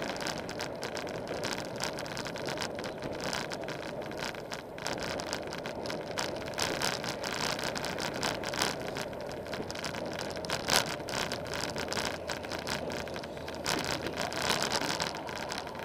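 Wind buffeting the microphone of a bicycle-mounted camera, with steady road noise from riding along a street and frequent small clicks and rattles, one louder knock partway through.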